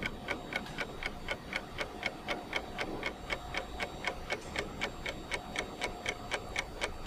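Clock ticking steadily, about four ticks a second.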